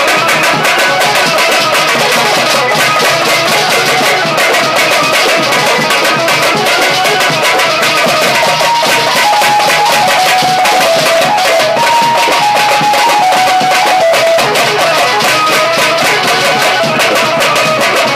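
Several double-headed barrel drums of the dhol type beaten fast by hand, a dense, loud, continuous drumming. A melody of held notes that step downward sounds over the drums in the middle stretch.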